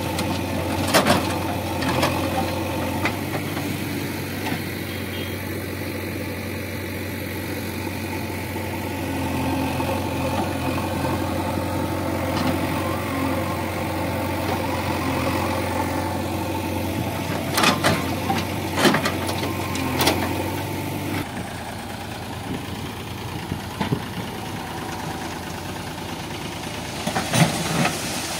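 JCB 3DX backhoe loader's diesel engine running steadily while it loads soil into a tractor trolley, with several sharp knocks as the bucket and clods of earth strike the metal trolley. About three-quarters of the way through the engine sound changes abruptly to a lighter tractor engine running as a trolley tips its load.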